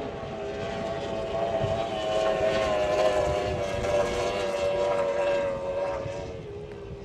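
Unlimited-class racing outboard engine on a race boat running at a steady pitch, growing louder and then fading as it passes.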